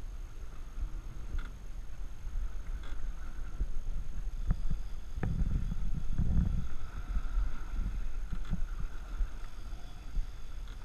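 Sportfishing boat under way at sea: a steady low engine rumble and buffeting on the microphone, with a faint steady whine, and a cluster of knocks and thumps between about four and a half and seven seconds in.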